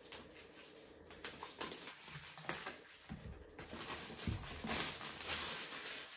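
Clear plastic shrink-wrap being peeled and torn off a cardboard product box, crackling and rustling irregularly. It grows louder and is loudest near the end.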